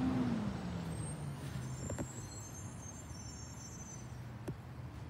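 Recycling truck engine dropping from a raised rev to a low idle over the first second or so, holding there, then revving up again near the end, with faint high squeaks in the middle.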